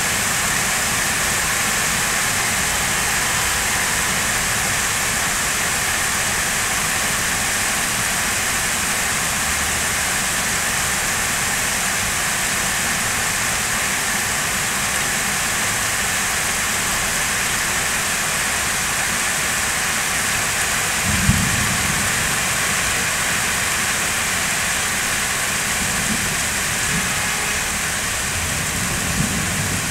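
Heavy rain falling steadily on the city below, a constant even hiss. A few brief low rumbles rise over it, one about two-thirds of the way through and two more near the end.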